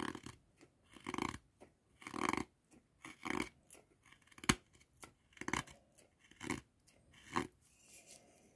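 Wolfgangs Lupus fixed-blade knife whittling curled shavings from bone-dry, rock-hard wood: a series of short scraping cuts, about one a second, with one sharp click about halfway through.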